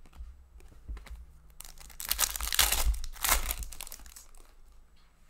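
The foil wrapper of an O-Pee-Chee Platinum hockey card pack being torn open and crinkled. The crinkling is loudest from about two to three and a half seconds in, with quieter handling before and after.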